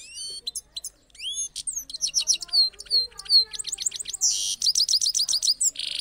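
Caged European goldfinch singing a fast twittering song of quick rising and falling high notes and rapid trills, broken by a harsh buzzy note about four seconds in and another at the end.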